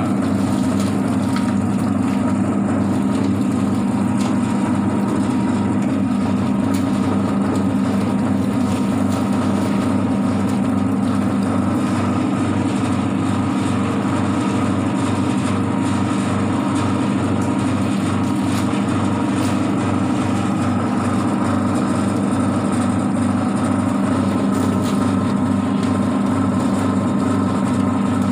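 Rotary drum chicken plucker running steadily: a constant low motor hum while chickens tumble against the rubber plucking fingers inside the spinning drum.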